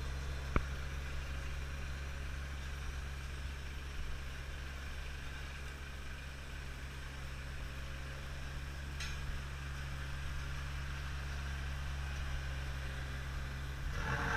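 Heavy truck's diesel engine running with a steady low drone while the truck creeps along laying asphalt from its spreader body. One sharp click sounds about half a second in, and a louder hiss builds right at the end.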